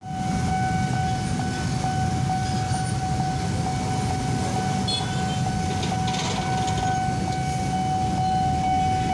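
Railway level-crossing warning alarm sounding one steady, unbroken high tone over a steady low rumble.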